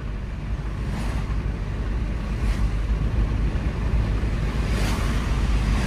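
In-cabin sound of a Maruti Swift Dzire diesel cruising in fifth gear at about 80 km/h: a steady low engine and road rumble with wind and tyre hiss, growing slightly louder as the car pulls on.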